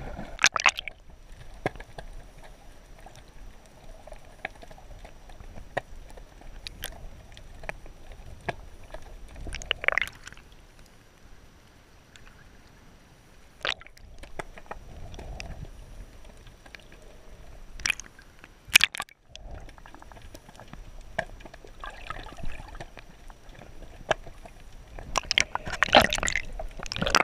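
Muffled underwater sound from a submerged camera: a low wash of water broken by scattered sharp clicks and a few short sloshing bursts, with the loudest cluster near the end.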